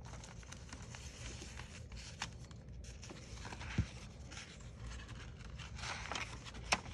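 Soft rustling and handling of paper and cardstock journal pages as they are turned, with a dull thump about four seconds in and a sharp tap near the end.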